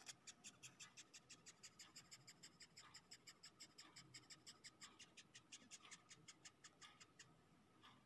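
Dung beetle stridulating while pinched between fingers: a faint, fast, even train of squeaky chirps, several a second, the beetle's 'crying' when handled. It stops shortly before the end.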